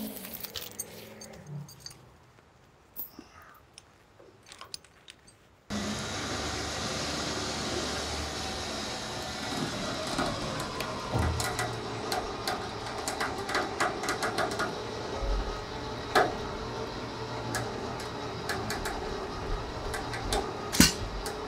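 Walnut log being winched onto a logging trailer's loading arch. The first few seconds are quiet, then a steady mechanical running sound sets in with frequent metallic clinks of chain and a couple of sharp knocks.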